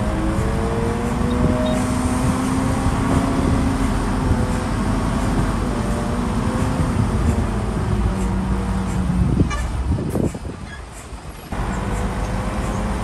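Diesel engine of a Shantui DH17B2 bulldozer running steadily under work, its note wavering slightly in pitch. About ten seconds in the sound drops away sharply for a second and a half, then comes back as before.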